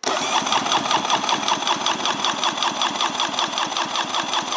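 Polaris Virage TXi 1200 three-cylinder two-stroke engine being spun by its electric starter for a compression test, cranking with a rapid, even chugging pulse as the PTO-side cylinder's gauge builds to about 125 PSI. It starts abruptly.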